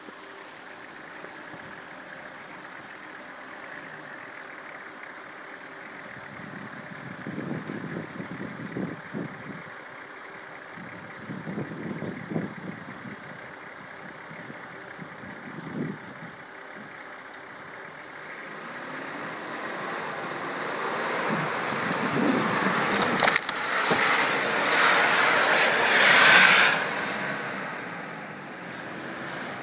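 Nissan Patrol 4.2 turbo-diesel engine pulling under load as the 4x4 churns through deep snow, with short surges of engine and tyre noise. The noise then builds steadily over the last third to its loudest point shortly before the end, and eases off.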